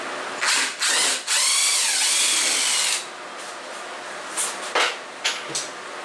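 Cordless drill-driver turning bolts in a plywood table-saw sled: two short bursts, then a longer run of about a second and a half whose whine dips in pitch as it ends. A few sharp knocks of the tool and wood being handled follow.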